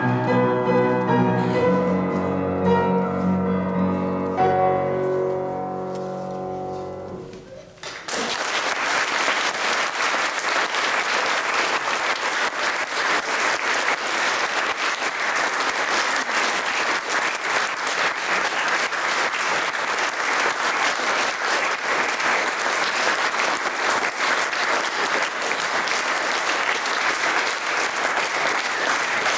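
An upright piano is played solo, ending on a chord that fades away. About eight seconds in, the audience breaks into steady applause that carries on.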